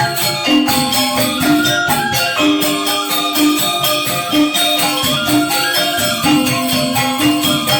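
Balinese gamelan angklung ensemble playing: four-tone reong gong-chimes with bamboo grantangan, a dense stream of quick repeated metallic notes over a shimmering, jingling top.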